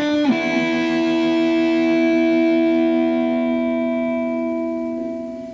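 Strobe Rambler electric travel guitar played through a small Roland amp with overdrive: a final chord, struck with a slight bend just after the start, is held and left to ring, fading slowly.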